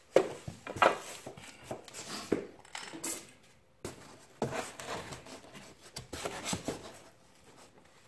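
Workshop handling noise: irregular knocks, taps and scraping as a rigid foam insulation board is pressed and fitted into a garage door panel, coming in a few clusters and trailing off near the end.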